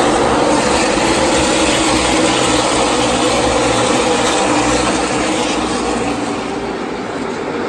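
NASCAR Xfinity Series stock cars' V8 engines running at race speed as the field laps the track: a loud, steady wall of engine noise that eases slightly near the end.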